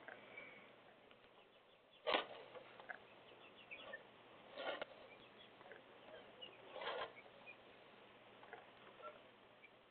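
Faint light patter of rain and drips over a low hiss, with three brief louder noises about two, four and a half, and seven seconds in.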